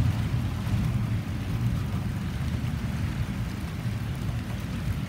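Double-stack container well cars of a freight train rolling past, a steady low rumble of steel wheels on rail.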